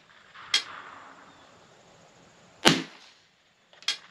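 Three gunshots: sharp cracks, each followed by a short echo, the loudest about two and a half seconds in and a fainter one about a second after it.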